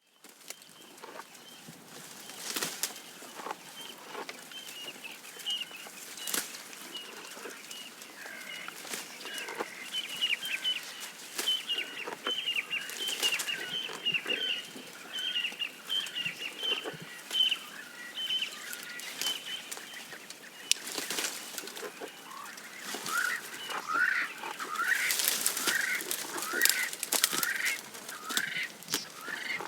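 Giraffe feeding on grass: irregular sharp tearing and crunching sounds. Birds chirp in quick repeated calls through most of it, busiest near the end.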